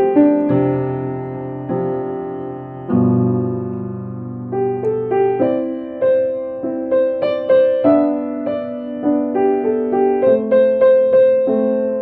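Solo piano music: slow held chords for the first few seconds, then a quicker melody of single struck notes about two to three a second from about six seconds in.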